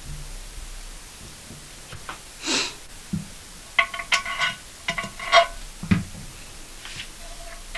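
Hard parts of a toilet cistern being handled: a short hiss about two and a half seconds in, then a quick series of sharp clinks and knocks, each with a brief ringing tone, and a dull thud around six seconds in.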